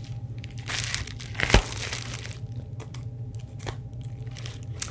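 A plastic bubble mailer being handled, rustling and crinkling, with one sharp knock about a second and a half in.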